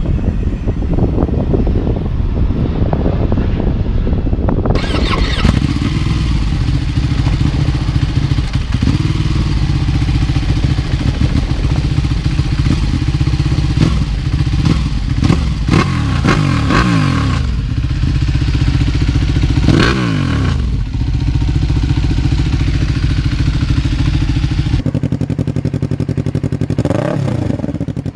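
Loud motorcycle engine running with a rapid, steady pulse at idle. Several quick throttle blips send the pitch up and back down.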